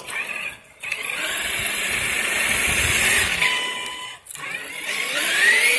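Brushless electric motor and drivetrain of a Traxxas RC truck whining under throttle, cutting out briefly twice as the throttle is released, then rising in pitch near the end as it accelerates.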